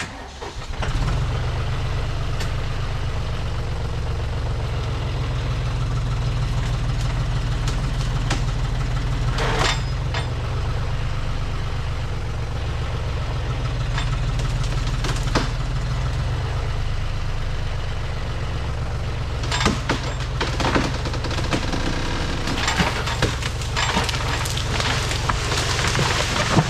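Farm tractor engine picking up about a second in and then running steadily under load as the tractor backs into a notched tree to push it over. Sharp cracks of wood sound now and then, most of them from about two-thirds of the way through.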